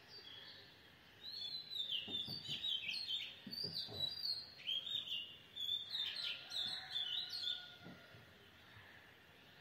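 Birds chirping: a quick, busy run of high, gliding chirps that starts about a second in and dies away shortly before the end, over a faint steady background hiss.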